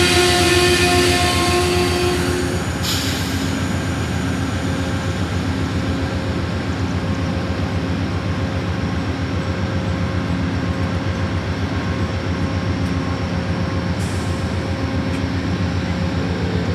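Amtrak passenger cars rolling past on the track: a steady rumble of wheels on rail. A cluster of high ringing tones sounds over it at first and stops about three seconds in.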